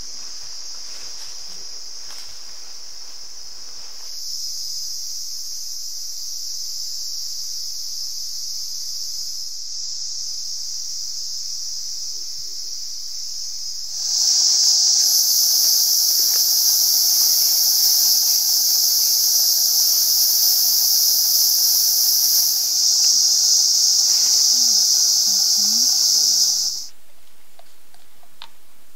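Steady high-pitched buzzing drone of forest insects, stepping up in level about 4 seconds in and again, much louder, about 14 seconds in, then stopping abruptly near the end.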